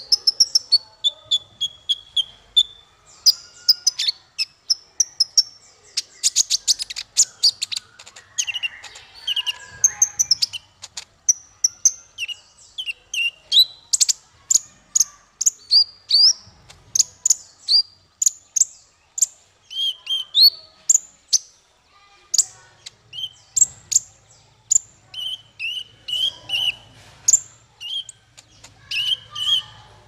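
Male Van Hasselt's sunbird (kolibri ninja) singing: a fast, continuous run of high, thin chirps and sharp ticking notes, many of them sliding down in pitch.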